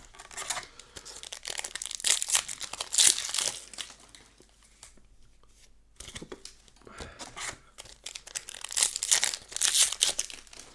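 Foil booster-pack wrappers being torn open and crinkled by hand, in two bouts of crackling with a brief pause about five seconds in.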